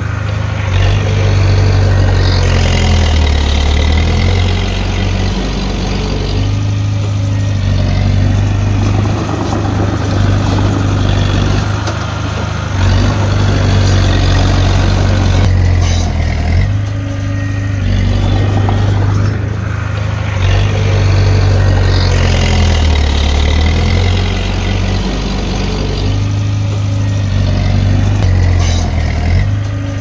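Komatsu D30P bulldozer's diesel engine working under load while pushing soil, its note rising and falling repeatedly as each push is made.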